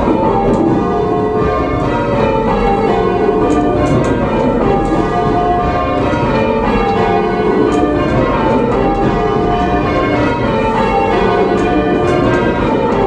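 A band of tower bells being rung in rounds by full-circle change ringing. The bells strike one after another in a steady, repeating descending sequence, each note overlapping the hum of the last.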